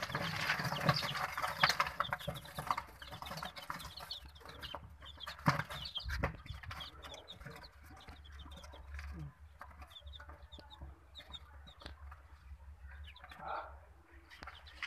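A brood of newly hatched ducklings and chicks peeping, many short high calls overlapping continuously, over a steady low hum.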